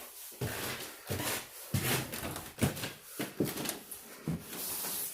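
Footsteps climbing stairs indoors, a heavy thud about every three quarters of a second.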